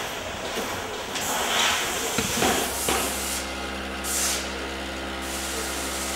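Factory packing-line noise: several hissing bursts in the first three seconds, then a steady machine hum with one more short hiss about four seconds in.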